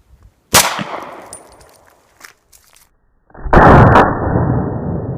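A single 9mm pistol shot from a Taurus PT92 about half a second in: one sharp crack that fades over about a second. A few seconds later a loud, muffled rush of noise starts and carries on.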